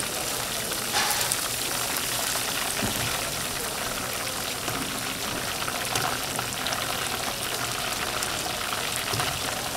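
Food deep-frying in hot oil: a steady sizzling hiss full of fine crackles.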